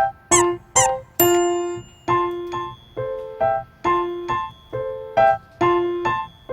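Background music: a light piano or keyboard melody of short separate notes, each struck and fading away.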